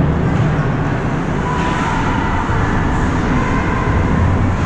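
Steady low rumbling noise of an indoor ice rink, with no distinct impacts or voices standing out.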